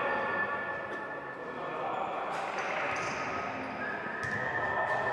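Voices and crowd chatter echoing in a sports hall during a basketball game, with a few faint sharp knocks and a faint steady high tone.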